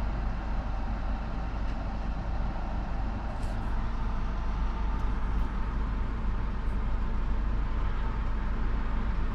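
2010 VW Tiguan's 2.0 TSI turbocharged four-cylinder running steadily at idle after its PCV valve was replaced, now free of misfires and of the PCV whistle.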